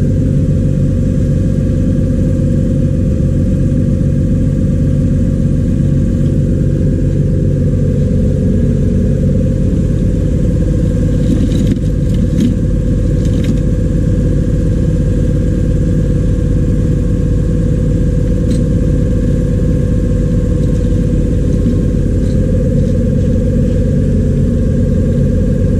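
Refrigeration vacuum pump running steadily with an even mechanical hum, with a few light metallic clicks near the middle.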